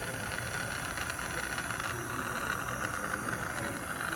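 Handheld soldering torch flame running with a steady hiss while copper pipe is heated to sweat a joint.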